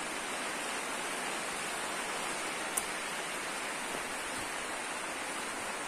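Steady, even rain-like hiss in a greenhouse, with one faint click about three seconds in.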